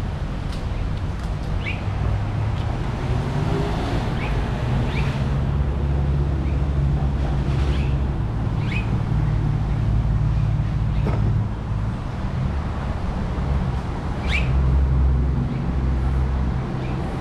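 Steady low rumble of road traffic with scattered short bird chirps over it.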